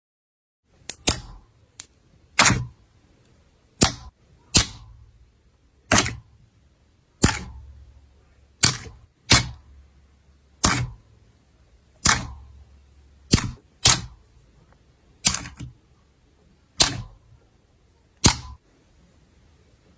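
Slime being pressed and poked, letting out sharp, loud pops of trapped air at uneven intervals, roughly one every second or so.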